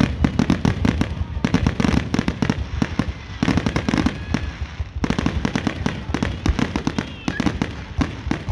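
Aerial fireworks going off in a dense rapid barrage, many sharp bangs and crackles in quick succession with brief lulls between clusters.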